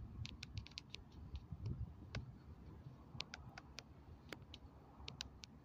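Faint, irregular ticking clicks, coming in loose clusters of a few a second, over a low rumble.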